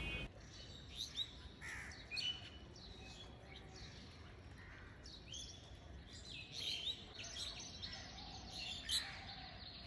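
Faint bird chirps: short, quick calls that slide up and down in pitch, in scattered clusters, mostly in the first few seconds and again from about halfway on.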